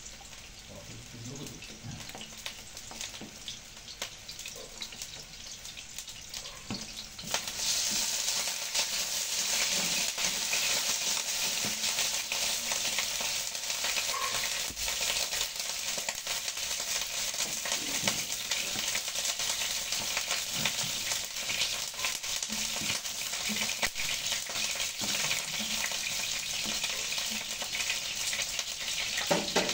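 Squid stir-frying in a hot pan, sizzling steadily as it is stirred. The sizzle jumps much louder about seven seconds in and stays loud.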